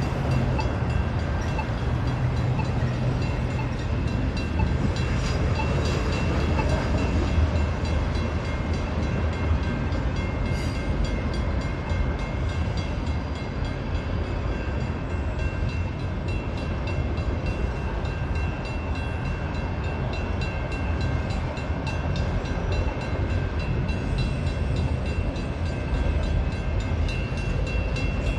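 Union Pacific freight train's cars rolling past at a railroad crossing: a steady rumble and clatter of wheels on rail, with a few steady high thin tones above it.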